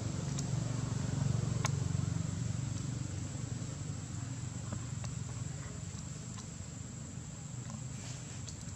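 Outdoor forest ambience: a low rumble that fades after about three seconds, a few scattered small clicks and rustles, and a steady high-pitched hum.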